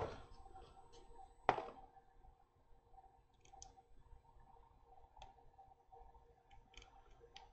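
Faint, scattered small clicks and taps of a metal tweezers working at a paper sticker sheet to lift off a sticker, with one sharper click about a second and a half in.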